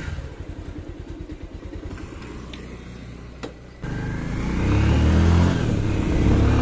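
Motorcycle engine idling with an even low pulse. About four seconds in it turns louder as the bike rides off, the engine pitch rising under acceleration and then holding steady.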